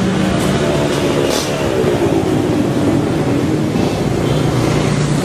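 A motor vehicle engine running, with a steady low hum and its pitch falling about two seconds in.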